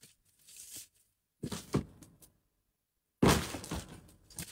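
Empty cardboard box being handled: short rustles about a second and a half in, then a sharp knock about three seconds in that dies away over about a second.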